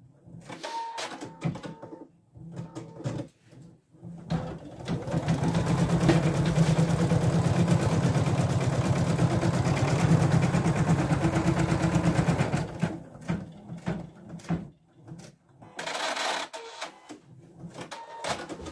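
Husqvarna Viking Designer Diamond embroidery machine stitching out a design: short stop-start runs for the first few seconds, then about eight seconds of fast, steady needle stitching, then short stop-start runs again near the end.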